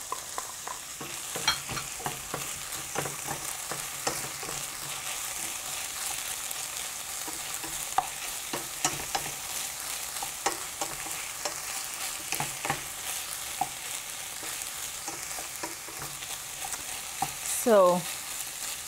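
Freshly added sliced white button mushrooms sizzling in olive oil in a stainless steel sauté pan, a steady hiss under frequent knocks and scrapes of a wooden spatula stirring them against the pan.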